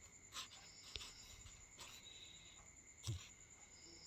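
Near silence: faint steady background hiss with a few soft, brief clicks.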